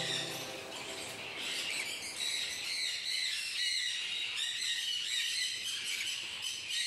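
Many caged birds calling at once, a dense, steady, high chatter of overlapping chirps.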